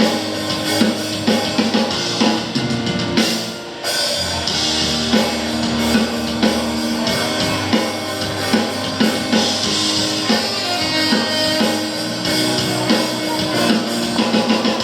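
Live band playing at a sound check: drum kit keeping a steady beat under guitar.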